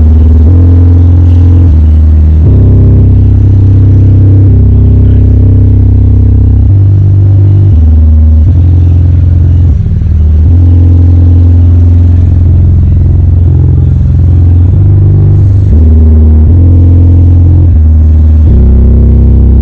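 A subwoofer bass bin playing only the low end of a song: loud, deep bass notes each held a second or two and changing pitch, with little of the rest of the music coming through.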